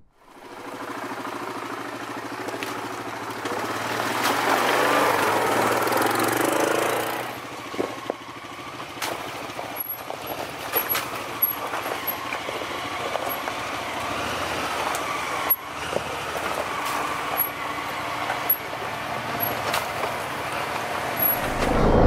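ATV engine running on a rough trail. It grows louder for a few seconds from about four seconds in, then eases off, with scattered knocks.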